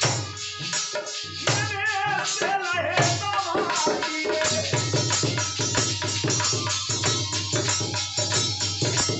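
Live Indian folk devotional music: a man sings a wavering line over harmonium, violin and dholak for the first few seconds, then the instruments carry on with a fast, steady dholak beat.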